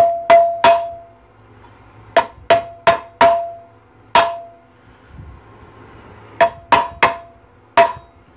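Ball-peen hammer tapping a shift shaft seal into its bore in an aluminium 4L60E transmission case. About a dozen sharp taps come in three short runs, each with a brief metallic ring.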